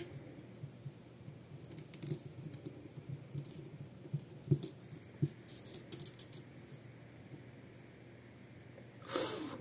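Soldering iron and wire being worked on a lithium-ion battery pack's BMS connection: faint scattered clicks and light taps, with two sharper taps around the middle. A short burst of noise comes near the end.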